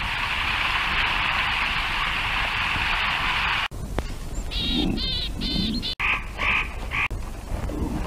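A dense, steady chorus of calling animals for almost four seconds, cut off abruptly, followed by a handful of short separate calls.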